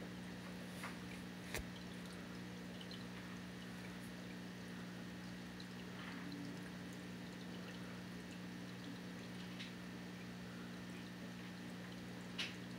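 A low steady hum, with a faint click about a second and a half in and another near the end.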